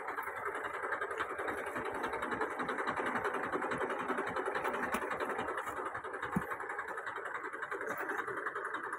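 Tractor's diesel engine running steadily, with a short low knock about six and a half seconds in.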